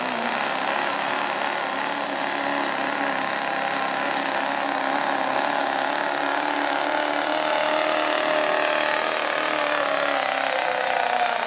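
GMC pickup's Duramax turbo-diesel running hard under full load as it drags a truck-pulling sled. A steady mechanical noise, with engine tones that shift slowly in pitch.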